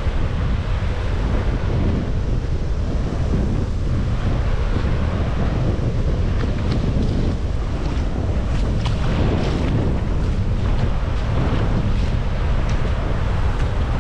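Wind blowing across the microphone over the steady wash of waves on the shore.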